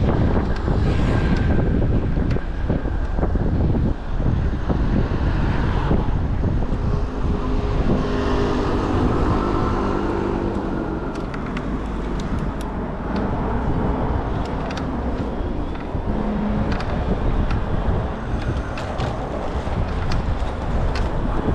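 City street traffic with wind rumbling on the microphone, as if riding a bike through it. About eight seconds in, a motor vehicle's engine passes close by for a few seconds.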